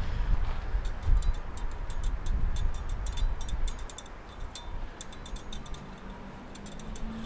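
Scattered light clicks and taps of hands working in a car's engine bay, over a low rumble that fades after about four seconds.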